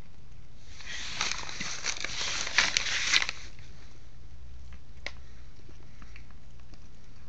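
A cat chewing and tearing at a slice of ham, a noisy, crackly burst of wet smacking lasting about two and a half seconds, with a single click a little later, over a steady low hum.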